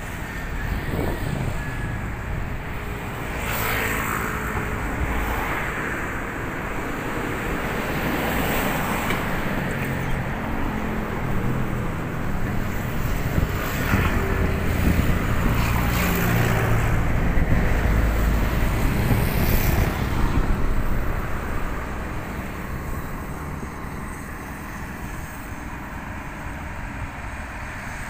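Road traffic passing on a bridge: a continuous rumble of tyres and engines that swells several times as vehicles go by, loudest about two-thirds of the way through, then eases off.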